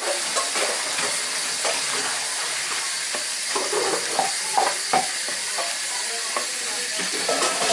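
Knife slicing an onion on a cutting board: irregular, quick knocks of the blade against the board over a steady hiss.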